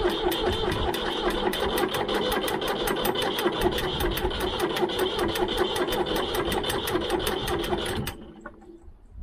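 Ford 3000 tractor's three-cylinder engine being cranked by its starter motor on a cold start: a fast, even beat that does not catch into running. The cranking cuts off suddenly about eight seconds in.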